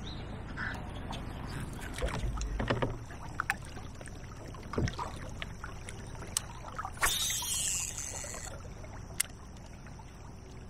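Handling noises aboard a fishing kayak: scattered small knocks and clicks over a low steady rumble, with a brief whir about seven seconds in.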